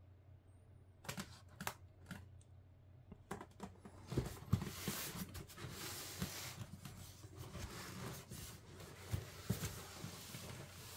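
Cardboard box and packaging being handled and opened: a few sharp clicks and taps, then from about four seconds in continuous rustling and scraping with scattered knocks.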